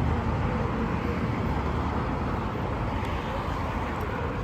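Steady road-traffic noise, an even rumble with no distinct events.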